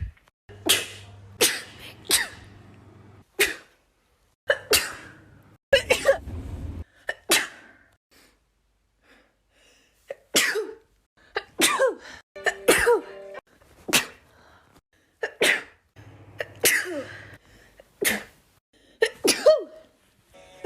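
A person sneezing again and again, about fifteen short, sharp sneezes, roughly one a second, with a pause of about two seconds midway.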